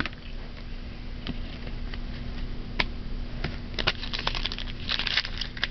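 Trading cards and a foil card-pack wrapper being handled: a few light clicks at first, then a denser run of crinkling crackles from about three and a half seconds in.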